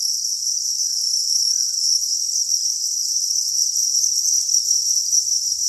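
A steady, high-pitched chorus of many farmed crickets chirping together in their rearing pen, an unbroken shrill with no pauses.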